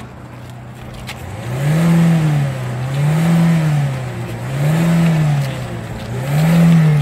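Ford Fiesta ST's turbocharged four-cylinder engine running steadily, then, about a second and a half in, revved in an even rhythm: four smooth rises and falls in pitch, one about every second and a half.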